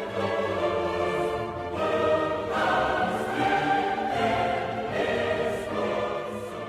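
Choral music: a choir singing long, sustained chords.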